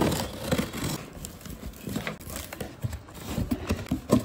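A cardboard shipping box being opened: scissors slicing through the packing tape, then the cardboard flaps rustling and a shoebox being handled, with scattered light knocks and taps.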